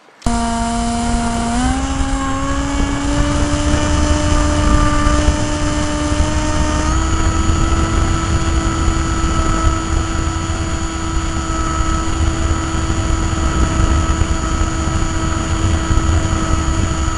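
Electric motor and propeller of a radio-controlled model plane in flight, heard from an onboard camera: a steady whine that steps up in pitch twice as the throttle is opened, about 1.5 s and 7 s in, over heavy wind rumble on the microphone.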